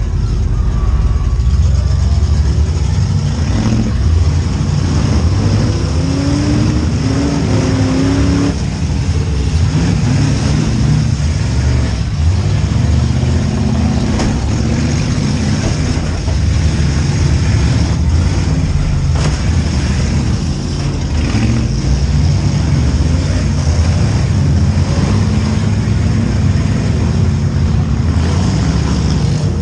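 V8 engines of demolition derby cars running loud and revving, with a couple of sharp knocks in the middle.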